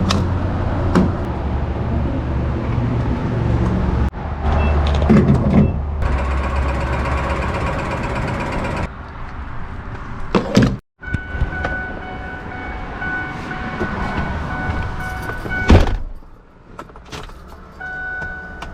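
Cummins diesel engine pulling at highway speed, heard inside the truck cab with road noise, through a washing-machine exhaust tip. About nine seconds in the engine sound falls away. After a brief dropout a quieter stretch follows with a repeated high beeping tone.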